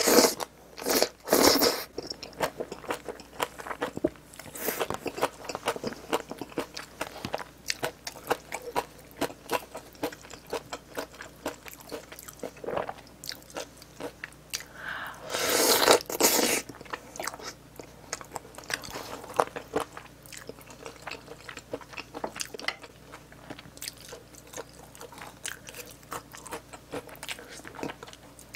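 A person biting, chewing and crunching food close to the microphone, with many small wet clicks and two louder stretches of crunching, one right at the start and one about halfway through.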